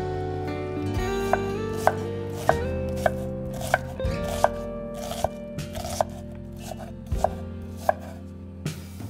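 A knife chopping on a cutting board: sharp single strokes about every half second to a second, getting fainter toward the end, over background music with held notes.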